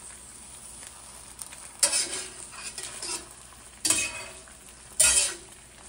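A slotted metal spatula scrapes across the surface of a 1920s Wagner cast iron skillet three times, sliding under frying eggs that move freely on the seasoned surface. Between the scrapes there is a faint steady sizzle of eggs frying on low heat.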